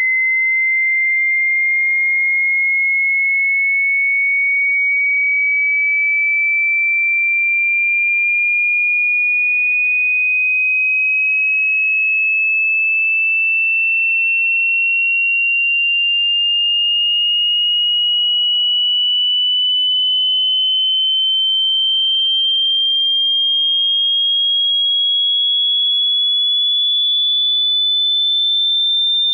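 A single high pure sine tone rising slowly and steadily in pitch, a frequency sweep from a hearing test.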